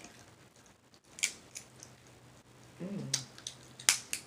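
Loud close-up eating from a seafood boil: a few sharp wet smacking clicks, the loudest just before the end, over a low hummed "mmm" that starts about a second in.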